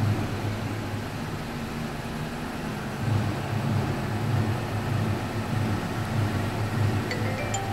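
Mercedes-Benz C-Class W204 engine idling after a remote start, a steady low hum that swells and eases slightly. Near the end come a few short, high electronic beeps.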